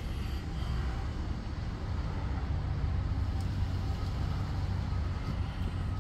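Pickup truck driving, heard from inside the cab: a steady low engine and road rumble.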